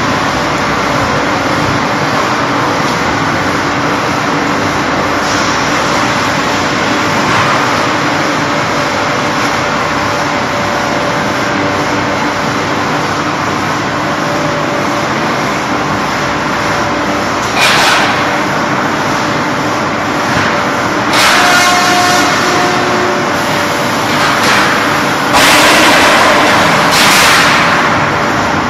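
Steady drone of machinery on a quartz slab production line, with a low hum. In the last third come several bursts of air hissing, the longest about two seconds, the loudest near the end.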